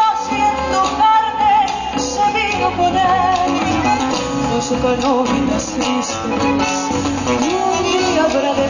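Latin American folk music: acoustic guitars under a wavering melody line.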